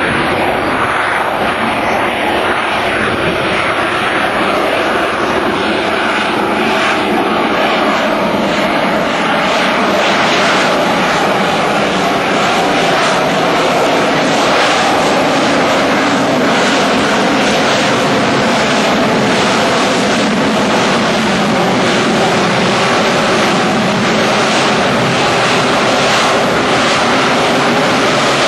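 AV-8 Harrier's Rolls-Royce Pegasus vectored-thrust turbofan running loud and steady as the jet hovers and moves slowly on engine thrust. The sound grows a little louder about a third of the way through.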